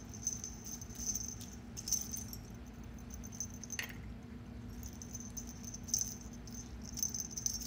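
A kitten's beaded wand toy jingling and rattling in short bursts, about once a second, as the kitten bats and drags it around, with one sharp click near the middle, over a steady low hum.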